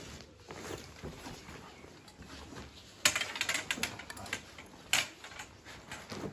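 Folding camp chair's metal frame rattling and clicking as it is folded and handled, with a clatter of clicks about three seconds in and another sharp clatter about five seconds in.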